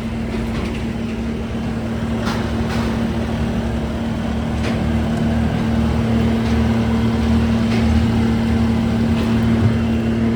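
Bobcat T590 compact track loader's 66 hp diesel engine running steadily, with a few faint clicks over it.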